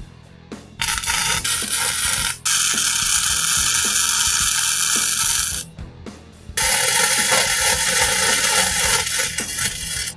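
Electric arc welding on steel square tubing: the arc sizzles in three stretches of a few seconds each, with short breaks between.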